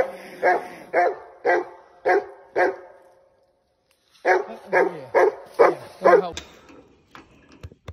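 Walker coonhound barking up a tree where it has treed a raccoon. Short barks come about two a second in two runs, with a pause of about a second and a half between them.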